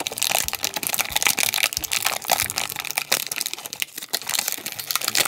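Clear plastic packaging bag crinkling as hands pull a small plastic toy figure out of it: a continuous run of rapid, sharp crackles.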